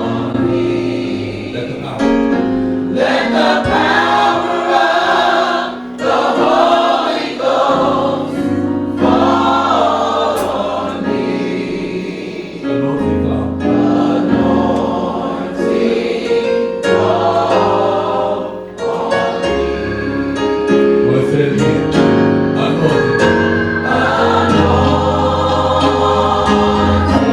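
Gospel choir singing with instrumental backing, in phrases of a few seconds each over sustained bass notes.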